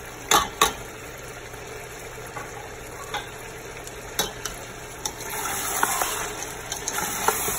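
Chicken, tomato and spices frying in oil in a stainless steel pot with a steady sizzle. A metal spoon clinks against the pot as it is stirred, with two sharp clinks near the start. The sizzle grows louder about five seconds in as the stirring picks up.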